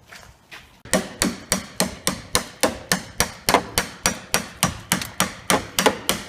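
Rapid, evenly paced hammer-like strikes, about three to four a second, starting about a second in. They come from knocking leftover glass and adhesive out of a car's rear hatch window frame.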